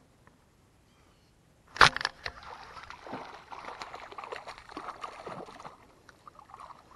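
A sudden loud splash-like knock about two seconds in, then a few seconds of splashing and scuffing that die away: a hooked bass thrashing at the surface beside a small boat after the hookset.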